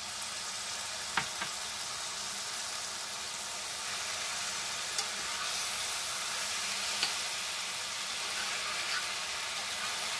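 Okra, onions and spices frying in oil in a metal pan, just splashed with tamarind water: a steady sizzle. A few short clicks come from the spoon against the pan as the okra is stirred.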